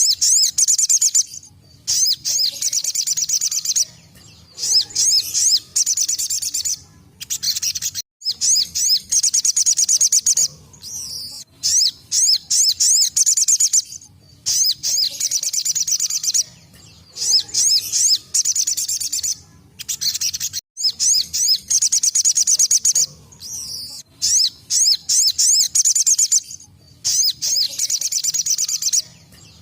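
Sogon (sogok ontong) sunbird singing its rapid 'tembakan' song: high, fast-trilled bursts a second or two long, repeated over and over with short breaks.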